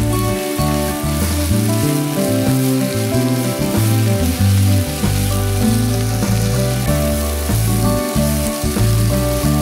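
Garlic chives and satsuma-age fish cake sizzling in an oiled frying pan as they are stir-fried and turned with chopsticks, cooking until the chives wilt. Background music with shifting notes plays over the sizzle.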